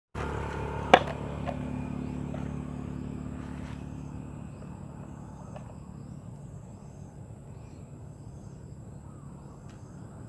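Outdoor ambience with a sharp click about a second in and a few fainter ticks, over a steady low hum that slowly fades, with faint steady high-pitched tones.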